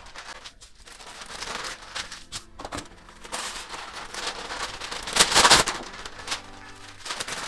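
Baking parchment being pulled from its box and handled, crackling and rustling in irregular bursts, with the loudest crinkle about five seconds in.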